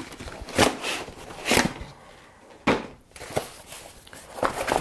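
Cardboard packaging being handled: a graphics card box slid out of its sleeve and its inner box opened, giving about five short scrapes and knocks of cardboard.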